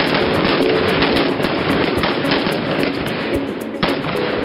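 Rapid, overlapping handgun shots from several shooters firing at once, making a dense, continuous crackle, with faint music underneath.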